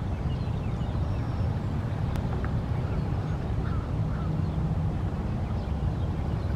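A steady low rumble, with faint, short, scattered calls from waterbirds other than the silent, foraging egret.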